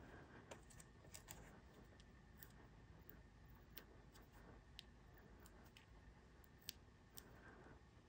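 Near silence with about ten faint, scattered small clicks and ticks as fingers handle paper die-cuts and peel foam adhesive dimensionals off their backing sheet; the sharpest click comes near the end.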